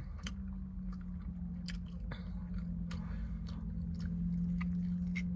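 Close-up chewing and biting of fried chicken, with scattered small wet clicks and smacks. A steady low hum runs underneath.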